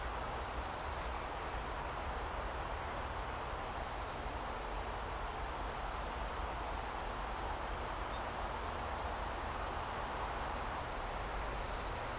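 Steady outdoor background noise with a low rumble, and faint short high chirps of small birds every few seconds.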